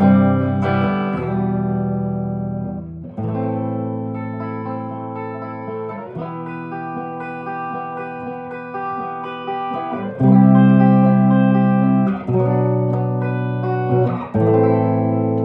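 A 1968 Gibson SG Junior electric guitar with a single P90 pickup plays chords that are struck and left to ring. A new chord comes every two to four seconds.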